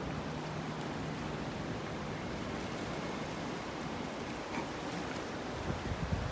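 Steady rush of wind and small waves on open water, with wind buffeting the microphone.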